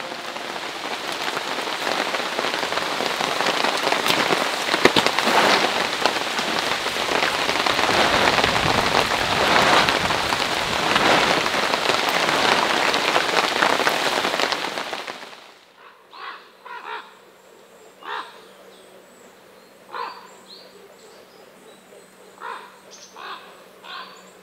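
Steady heavy rain pattering down, cutting off abruptly about fifteen seconds in. After that come short bird calls at irregular intervals over a faint steady hum.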